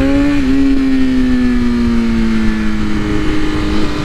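Sportbike engine pulling at road speed, dipping briefly about half a second in as it shifts up, then running on with its pitch slowly falling. Wind rumbles on the microphone underneath.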